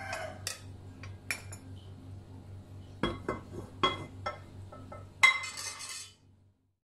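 Metal ladle and cooking pot clinking and knocking against each other, the glass mug and the stove: a few separate clinks, then a louder clatter about five seconds in, over a low steady hum. The sound stops about six seconds in.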